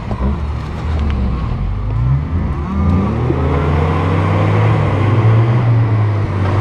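Engines of two 4x4s running hard under load during a mud recovery: a Lada Niva stuck in a muddy rut with its wheels spinning, pulled out on a tow strap by an Opel Frontera. The engine sound gets louder about a second in and then holds steady, with the revs rising and falling.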